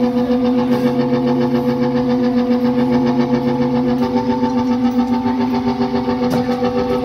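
Sustained synthesizer chord pulsing in a steady, fast rhythm, the chord changing about four seconds in.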